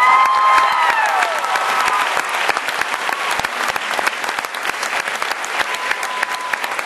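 Audience applauding, with high cheers and whoops at the start that fall away within about two seconds, leaving dense steady clapping.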